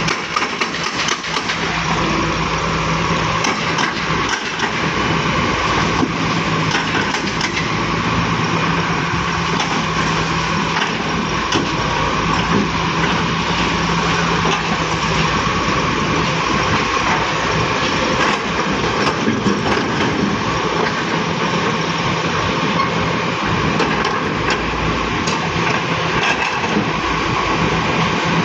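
Volvo excavator's diesel engine running steadily, with scattered sharp knocks and cracks over it.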